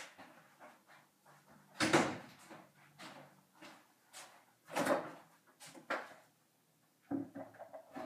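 Several separate knocks and handling clatters, the loudest about two seconds in, more near the middle and a short run of them near the end.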